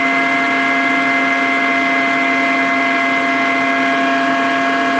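Makita 18V brushless 2-gallon wet/dry vac dust extractor running steadily at its full 57 CFM setting: a pretty quiet, even motor whine of several tones over a hiss of rushing air.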